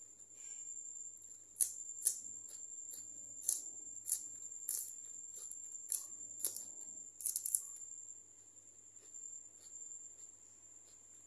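Raw green onion stalks crunched between the teeth while eating: a run of sharp, crisp crunches for several seconds that stops about two-thirds of the way in. A steady high-pitched tone runs underneath.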